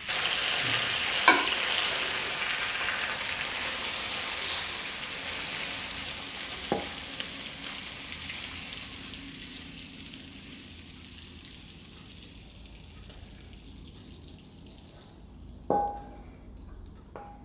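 Hot chicken and onion stir fry sizzling in a wok taken off the flame, the sizzle dying away steadily as the food is scooped out. Three sharp knocks of the ladle against the wok cut through it.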